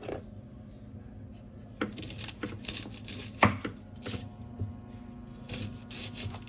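Kitchen work: about seven irregular knocks and clatters of utensils, with scraping and rustling between them. The loudest knock comes about halfway through.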